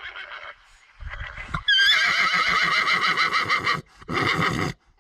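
A horse whinnying: one long quavering call starting a little under two seconds in, then a shorter call just after it.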